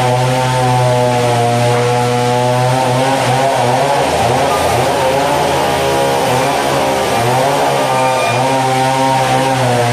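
Loud, steady drone of sawmill machinery, an engine-like hum whose pitch wavers and shifts from about three seconds in, as if under changing load, and steadies again near the end.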